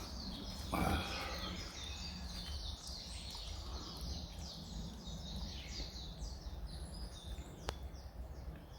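Small birds singing and chirping, a busy run of short, high, falling notes, over a low steady rumble. A brief rustle about a second in and a single sharp click near the end.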